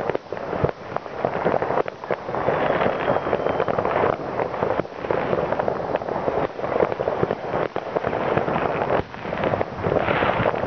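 Many fireworks and firecrackers going off all over a town at once: a dense, unbroken crackle of bangs and pops, with sharper single cracks standing out.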